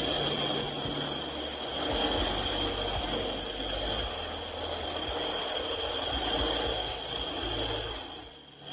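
Shop machinery running steadily, with a constant high-pitched whine over a rough, shifting rumble. It dies down about eight seconds in.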